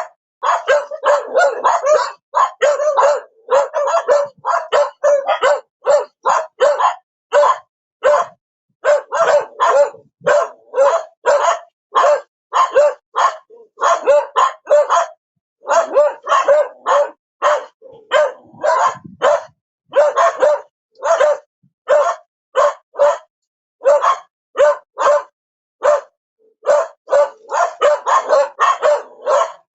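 A dog barking repeatedly: short, sharp barks about two a second, in runs broken by brief pauses.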